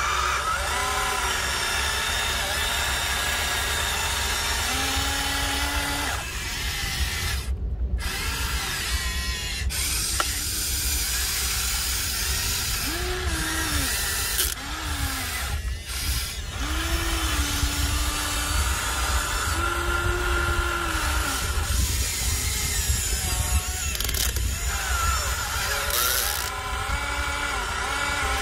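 Electric motors and gearboxes of a Huina 1593 RC excavator whining as the boom, arm and bucket dig and swing. The pitch rises and falls, and the whine stops and starts again as each movement begins and ends.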